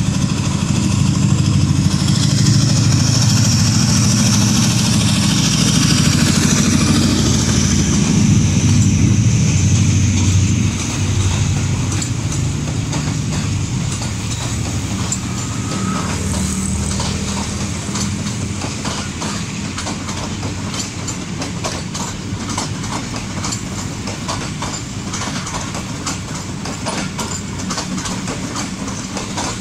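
Diesel-electric locomotive passing close by, its engine drone strong for the first ten seconds or so, then the passenger coaches rolling past at low speed with wheels clicking over the rail joints.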